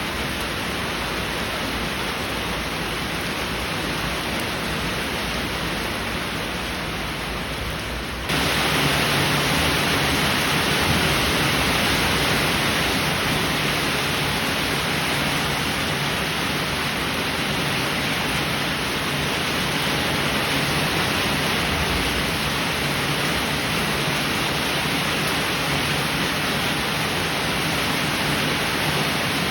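Heavy rain falling in a steady hiss; about eight seconds in it switches abruptly to a louder, brighter downpour.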